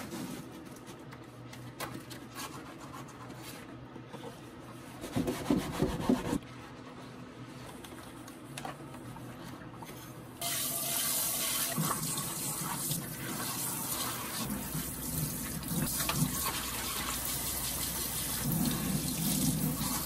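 Dishes being washed by hand in a stainless steel sink: a sponge scrubbing pots and bowls, with a brief clatter of dishware about five seconds in. About halfway through, the tap comes on and runs steadily, splashing over the dishes being rinsed, with knocks of pots against the sink.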